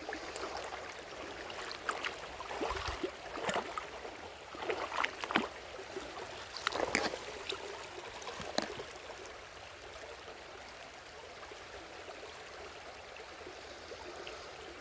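Stream water running at a waterfall, with a run of short splashes and knocks over the first several seconds, then only the steady flow.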